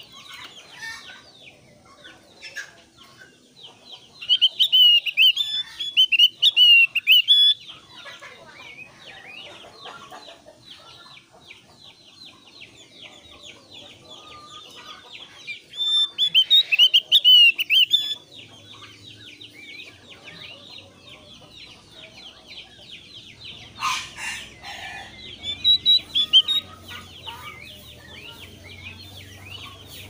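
Javan grey-throated white-eye (opior Jawa) singing: three loud bursts of rapid, harsh chattering notes, about four, sixteen and twenty-four seconds in, with softer quick chatter in between.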